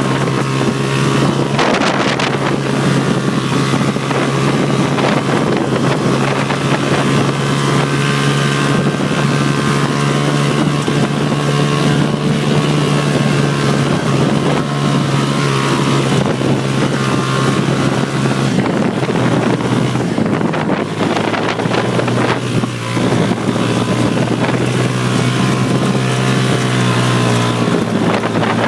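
Hammerhead off-road buggy's engine running at steady high revs, with wind noise on the microphone. About two-thirds of the way through, the steady engine note breaks up for a few seconds, then settles back slightly lower.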